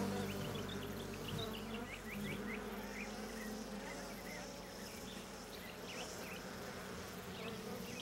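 European honey bees buzzing around their hive, a steady hum, with short high bird chirps scattered over it.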